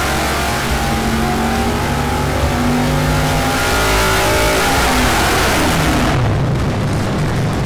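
Carbureted Dart SHB 400 cubic-inch small-block Chevy V8 making a naturally aspirated power pull on an engine dyno: loud and climbing steadily in revs under load. About six seconds in the throttle closes and the revs fall away.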